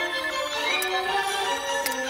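Background music: a melody of held notes changing every fraction of a second, with a few light ticks.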